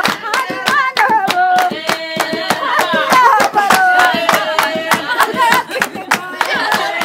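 A group of women singing together, with quick, steady handclapping keeping time.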